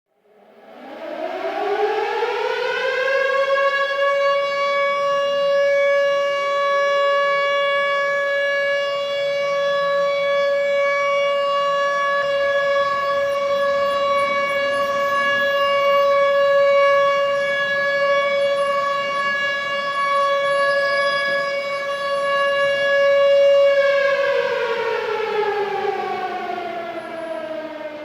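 A siren winds up to a steady high tone over about three seconds. It holds that tone for some twenty seconds, then winds down in pitch near the end.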